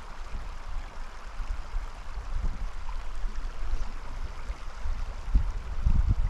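Small mountain creek flowing, a steady watery hiss, with irregular low rumbling on the microphone that is heaviest about five to six seconds in.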